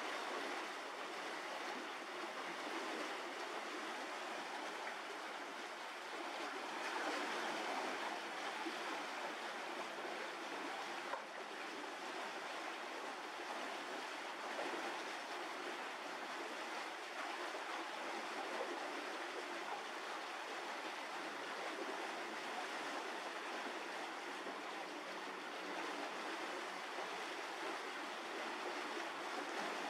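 Steady rushing noise with no distinct events, swelling slightly about seven seconds in.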